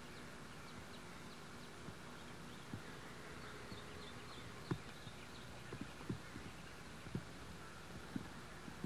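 Faint outdoor ambience under the steady hiss of an old VHS soundtrack, with a handful of soft, scattered clicks, the sharpest about halfway through, and faint short high chirps in the first half.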